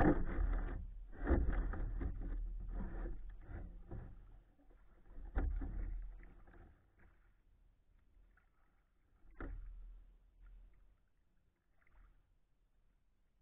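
Kayak paddle strokes splashing and dripping in calm water, with two sharper knocks about five and nine seconds in; the strokes die away after about seven seconds.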